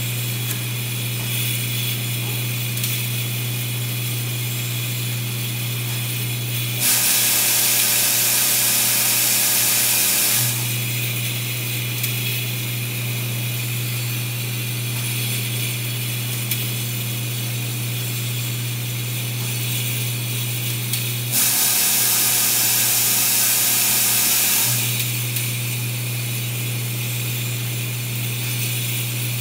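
Automated glass vial-handling machinery running: a steady low hum with scattered light ticks. Twice, about seven and twenty-one seconds in, a loud hiss comes on for three to four seconds and the hum fades under it.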